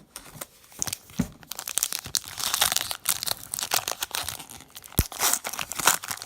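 Foil wrapper of a trading card pack being torn open and crinkled, a dense crackling with a couple of soft knocks.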